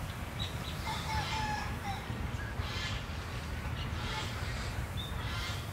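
Chickens calling in the yard, with small birds chirping in short high notes, over a steady low rumble.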